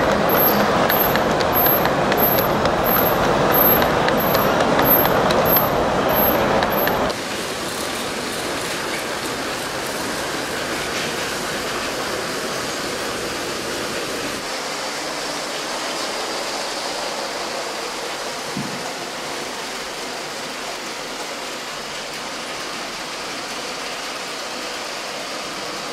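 Large-scale model freight train with loaded log wagons rolling along the track, a loud steady rolling rumble. About seven seconds in it cuts abruptly to the quieter, steady running of LEGO trains on plastic track.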